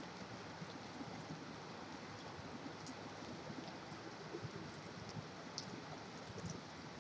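Steady rain mixed with the hiss of distant highway traffic, with scattered light drip ticks and a faint low hum underneath.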